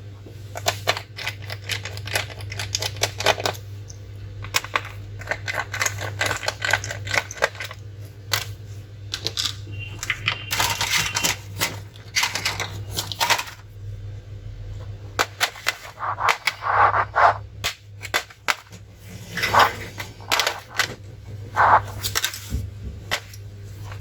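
Irregular plastic clicks, taps and clatter from a laptop's case and parts being handled and moved on a bench, over a steady low hum.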